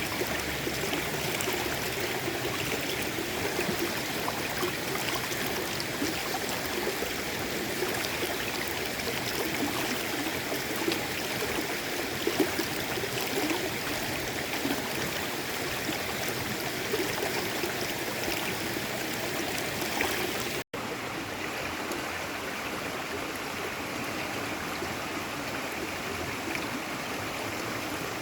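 Stream water running steadily, with a couple of brief louder sounds near the middle. It cuts out for an instant about two-thirds of the way through, then carries on a little duller.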